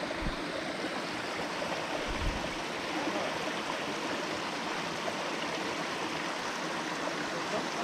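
A small mountain creek running steadily, its water splashing over rocks and little cascades. Two low thumps come about a quarter of a second and two seconds in.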